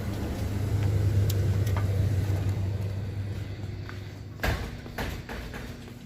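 Low, steady rumble of a motor vehicle engine that fades away over a few seconds, followed by two sharp knocks about half a second apart.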